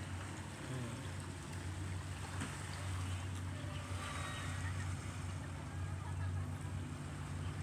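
Small boat's outboard motor running steadily across the water, a constant low hum, with faint distant voices over it.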